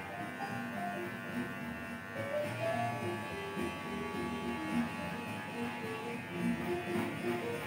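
Electric hair clipper buzzing steadily as it cuts a customer's hair, with music playing underneath.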